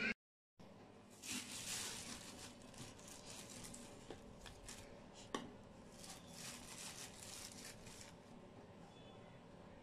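Faint rustling and scraping of flour being tipped and scooped into a plastic bowl, with a few light ticks and knocks; the sharpest comes about five seconds in. It starts after a moment of dead silence.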